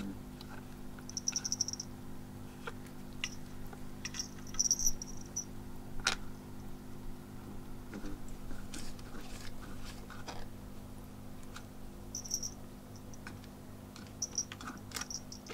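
Steady low hum of a pet water fountain's pump, with scattered light taps and splashes as a kitten paws at the fountain's plastic lid and water. Short high chirping trills come a few times.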